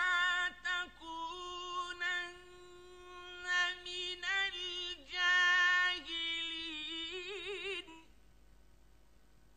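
A male Quran reciter's high voice in melodic recitation, drawing out long held notes with a fast wavering ornament near the end before stopping about eight seconds in.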